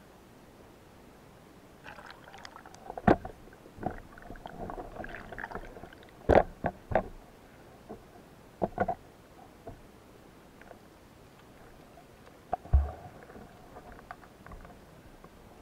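Water splashing and sloshing around a spearfisher swimming and diving, broken by several sharp knocks and a heavy thump near the end.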